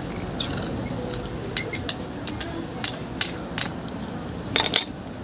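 Metal spoon and fork clicking and clinking against shellfish shells and a plate while eating, a dozen or so short sharp clicks scattered irregularly, the loudest two close together near the end, over a steady low background hum.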